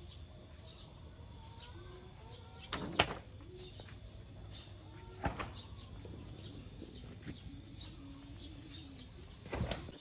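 Outdoor ambience with birds calling faintly throughout. A few sharp knocks or bumps cut through it, about three seconds in, past halfway and near the end, the first the loudest.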